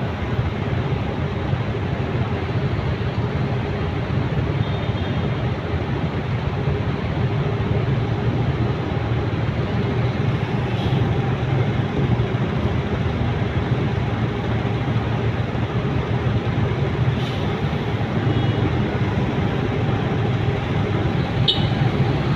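Traffic idling in a jam: a steady, unchanging engine hum and road noise, with the motorcycle's own engine idling close by. A few faint, short high squeaks about four seconds in and again near the end.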